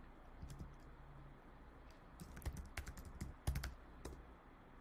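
Faint computer keyboard typing: a few scattered keystrokes, then a quick run of them from about two to nearly four seconds in.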